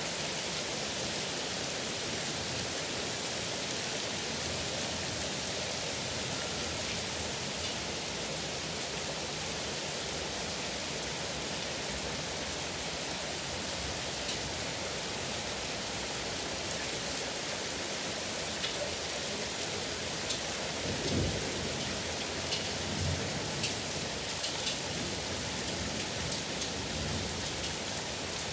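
Heavy rain pouring down steadily in strong wind. In the second half there are scattered sharp ticks of drops striking close by, and a few low thumps.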